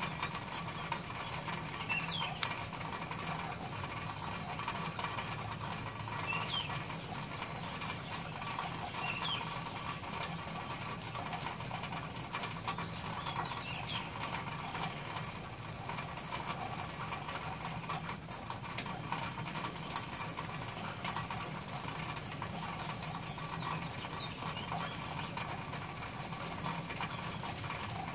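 Small birds chirping, with short high calls scattered throughout and a thin, very high trill repeated several times in the second half, over a steady low hum.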